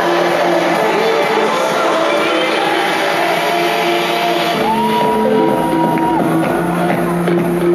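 Dance music played loud over a club sound system, with shouts and whoops from the crowd over it. The deep bass is absent at first and comes back in a little past halfway through.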